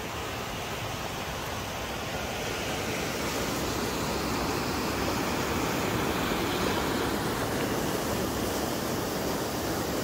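Steady rushing of a swollen mountain river in spate, growing slightly louder through the middle.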